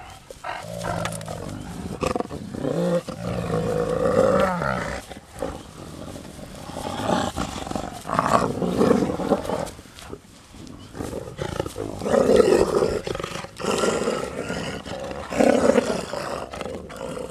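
Gray wolves vocalizing in an excited pack greeting: a run of whines and growls whose pitch rises and falls, coming in bursts of one to two seconds.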